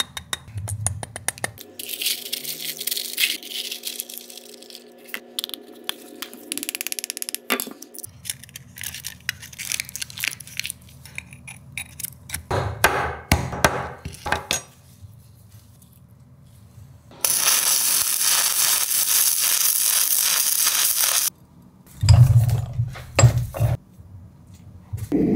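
Small steel pieces clinking and scraping as they are packed into a square steel tube canister. Later comes a steady hiss lasting about four seconds, then a few heavy knocks near the end.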